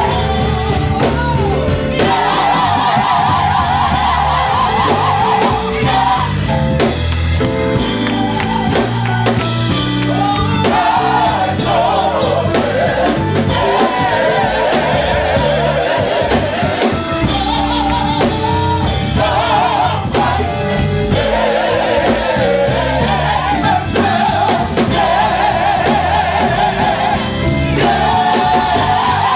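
Gospel singing with a live band and drums, voices carrying a wavering melody over a steady beat.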